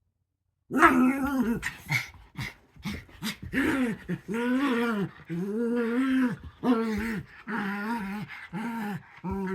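A small dog giving a string of drawn-out growling whines while playing. There are about eight in a row, each rising and falling in pitch, starting just under a second in.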